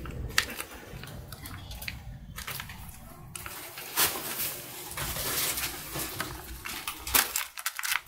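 Plastic wrapper of a candy surprise egg crinkling and tearing as it is peeled and picked at by hand, with scattered clicks and a denser stretch of crackling through the middle.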